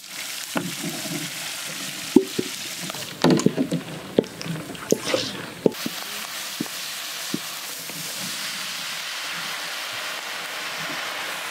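Dried red chillies frying in hot oil in a large metal pan, sizzling steadily. A metal spatula stirring them clacks and scrapes against the pan in a run of sharp knocks between about two and six seconds in.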